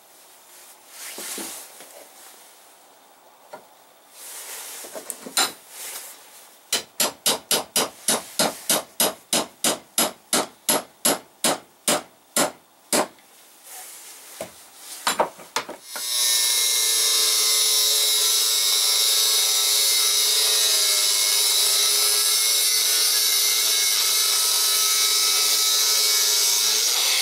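A quick run of about twenty sharp, evenly spaced knocks, roughly three a second. About halfway through, an angle grinder starts up and runs steadily with a held whine as it cuts into steel.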